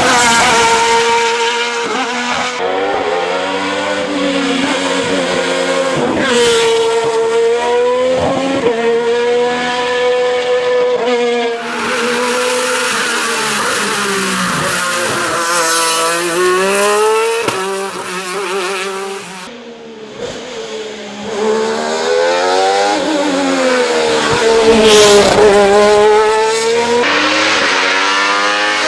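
Alfa Romeo 155 ITC-DTM race car's engine revving hard and dropping back over and over as it accelerates and brakes up a hillclimb course, the pitch climbing and falling with each burst. It goes briefly quieter about two-thirds of the way through, then picks up again.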